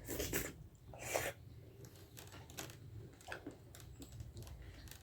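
Soft, wet mouth clicks and smacks of someone eating dhido with nettle curry close to the microphone. The louder clicks come near the start and about a second in, with fainter ticks after that.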